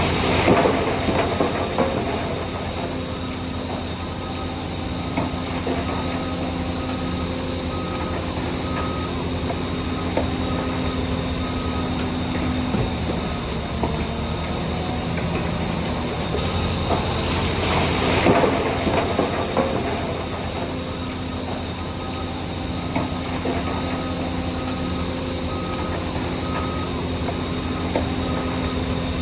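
Shantui DH17C3 bulldozer's diesel engine running steadily with the metallic clatter of its tracks, swelling into louder rushes of noise about a second in and again around eighteen seconds.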